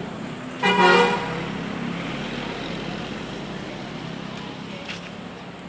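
A bus's telolet horn sounds one short blast, about half a second, shortly after the start, over steady traffic rumble.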